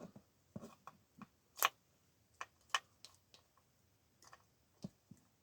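A series of about ten irregular light clicks and taps of small hard plastic model figures and parts being handled and set down on a hard surface, the loudest about one and a half seconds in.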